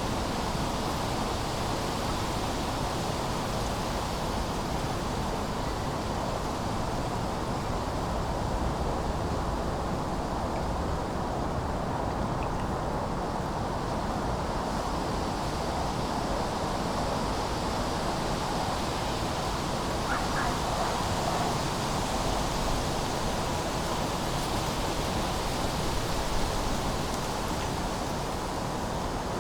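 Steady autumn wind blowing, with a low hum of distant city traffic beneath it.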